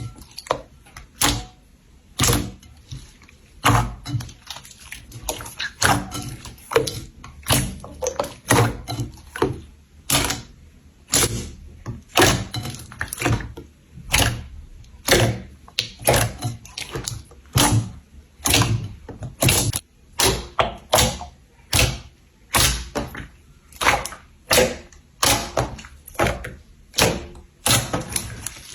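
Slime being pressed and worked, giving a steady run of sharp pops and clicks, about one or two a second.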